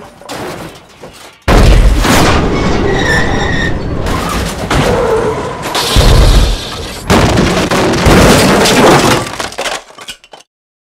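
Car crash sound effect: a sudden loud impact about a second and a half in, then several seconds of crunching, clattering wreckage with further heavy hits around six and seven seconds, dying away near the end.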